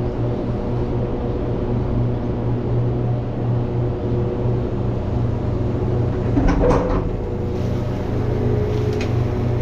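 Truck engine idling steadily, with a brief clank and squeak about six and a half seconds in.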